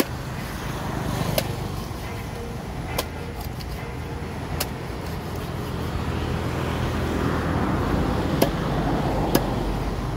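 Steady road traffic rumble that grows louder in the second half, with about five sharp knocks as a heavy knife chops through a tilapia on a wooden chopping block.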